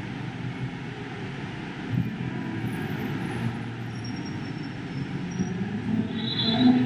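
Steady rumble of city street traffic, with a short high-pitched squeal near the end.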